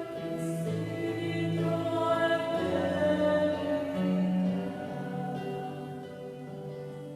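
A choir singing a slow hymn in long, held notes that change every second or so, growing softer over the last couple of seconds.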